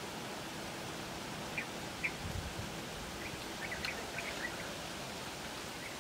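Small birds chirping: a few short, high calls about one and a half and two seconds in, then a quick cluster of chirps between about three and four and a half seconds, over a steady outdoor hiss. A soft low thump sounds about two seconds in.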